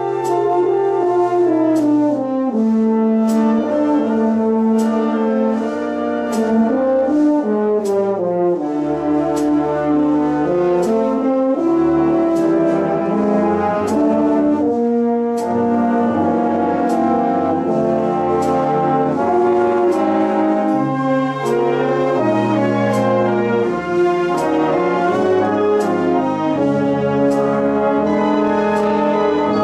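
Concert band playing: sustained brass chords of horns and trombones that shift every second or two, over a regular light percussion tap keeping the beat.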